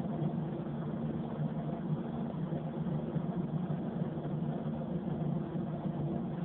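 Paint booth ventilation fans running, a steady low hum with a constant rush of air.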